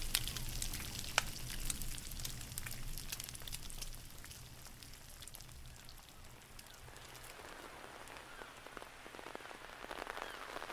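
Faint fire crackling with scattered sharp pops, growing quieter a few seconds in.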